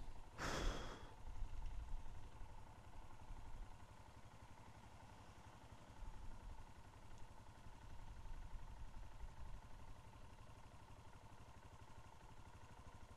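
Motorcycle engine idling steadily and quietly at a standstill, with a brief burst of noise about half a second in.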